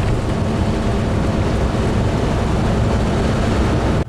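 Steady engine drone and road noise heard from inside the cab of a Class A motorhome cruising on the highway.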